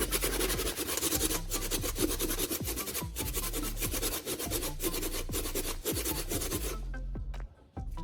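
Sandpaper rubbed by hand over a hard plastic casing in quick back-and-forth strokes, smoothing rough spots of a repair; the sanding stops about seven seconds in.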